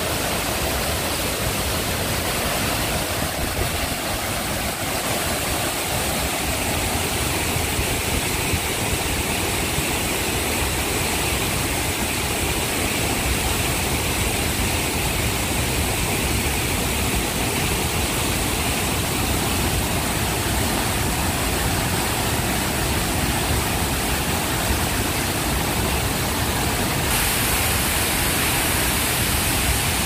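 Large waterfall crashing onto rocks: a loud, steady rush of falling water with a deep rumble underneath.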